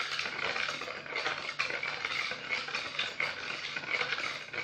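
A metal spoon stirring thin syrup in a plastic bowl, with quick repeated clicks and scrapes as the spoon knocks against the bowl.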